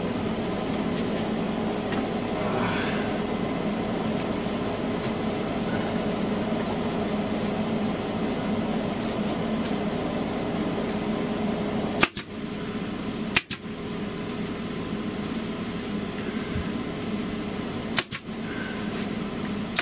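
Three sharp shots of an Arrow PT50 pneumatic air stapler stapling foil insulation overhead, two about a second apart past the middle and one more near the end. Under them runs the steady hum of the shop's window air conditioner.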